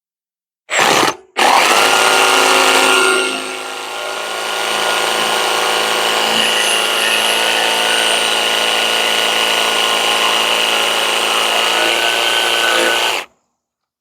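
Handheld power tool cutting into maple: it starts, cuts out for a moment and restarts, runs loud and steady with one easing-off about three seconds in, then stops sharply near the end.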